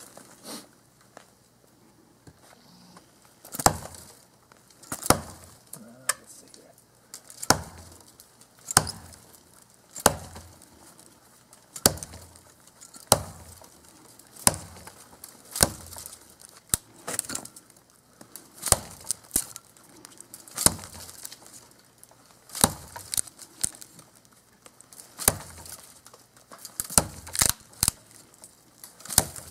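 Cold Steel Trail Hawk tomahawk chopping into a dead sapling about 3 inches thick: a string of sharp strikes of steel biting wood, starting a few seconds in and repeating about once a second or so, some with a splintering crackle.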